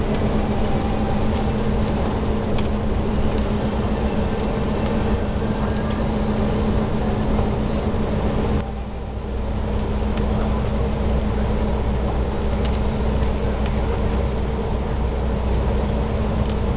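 Steady in-cab running noise of a DAF XF truck on a wet road: engine drone with a steady hum, plus tyre hiss. About halfway through it briefly drops, then carries on with a deeper, stronger low hum.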